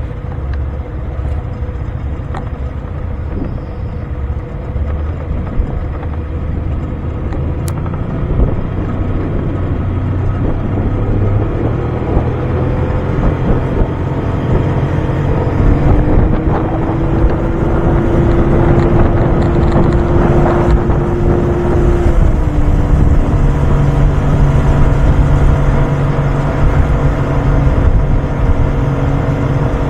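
Outboard motor pushing a 16-foot boat along a river. About halfway through the engine note rises and gets louder as the boat speeds up, then settles a little lower a few seconds later.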